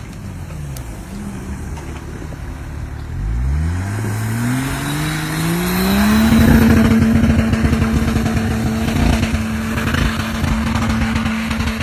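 Off-road vehicle's engine revving up over about three seconds, then held steady at high revs to the end.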